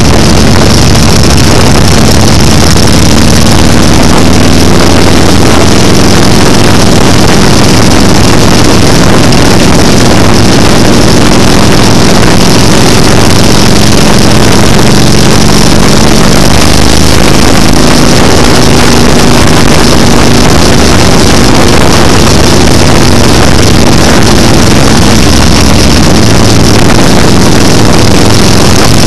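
Motorcycle engine running steadily at highway cruising speed, under heavy wind rush on the microphone; very loud and unchanging throughout.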